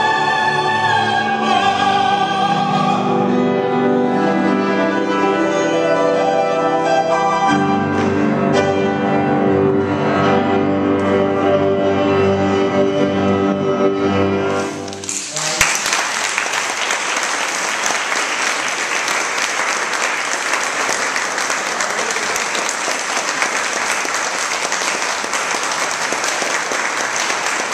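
Two female and two male opera singers singing the close of an ensemble with piano accompaniment, ending on a long held final chord about fifteen seconds in. Audience applause breaks out at once and carries on.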